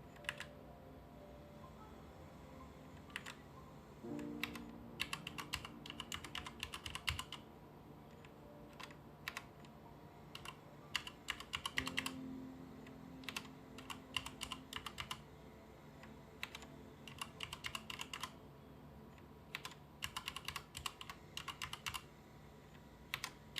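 Mechanical keyboard with Cherry MX switches and PBT keycaps being pressed in short runs of rapid keystrokes, with pauses between the runs.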